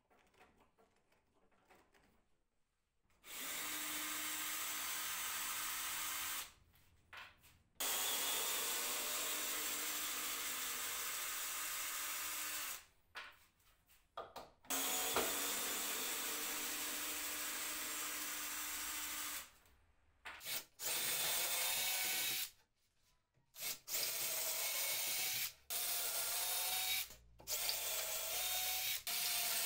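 Cordless drill running into wood in several steady runs of a few seconds each, driving screws into the bench boards, then in shorter, quicker runs boring holes with a wood drill bit near the end.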